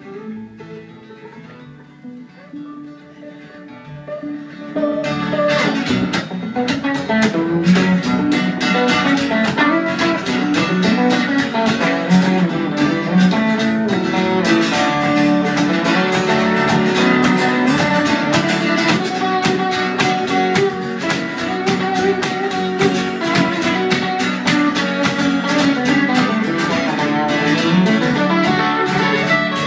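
Two guitars playing live with no singing: sparse, quiet notes at first, then from about five seconds in the playing turns loud and busy with fast strumming and picking.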